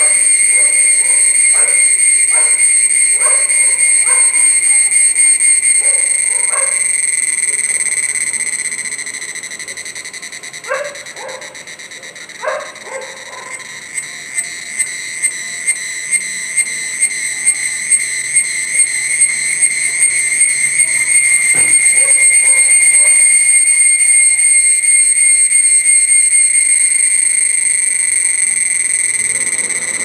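Pomponia cyanea cicada singing with its vibrating tymbals: a loud, steady, high-pitched whistling tone. It dies away about eight seconds in, then comes back as pulses about two a second that quicken and swell into the steady tone again, before fading slightly near the end.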